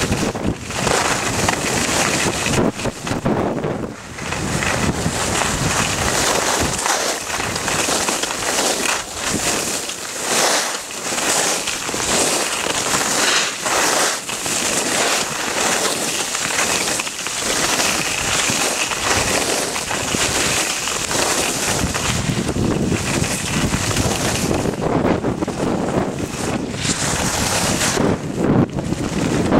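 Wind rushing over a helmet-mounted camera's microphone while skiing downhill, mixed with the hiss of skis scraping over packed snow. The rush swells and dips with each turn, and the low buffeting grows stronger near the end.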